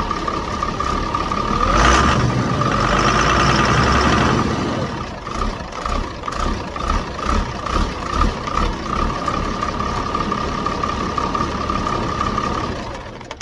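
5.9 Cummins turbo-diesel running, with a high steady whistle from the turbocharger, whose silencer ring has been taken out. It is revved about two seconds in, rises for a couple of seconds, then drops back to idle.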